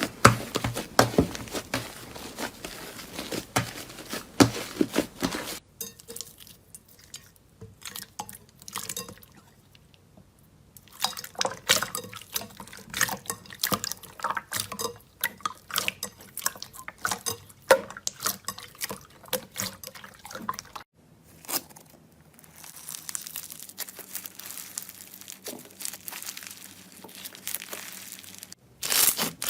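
Slime being squeezed, poked and pressed by hand, giving many small wet clicks and pops in several separate clips, with a quieter stretch of softer squishing near the end.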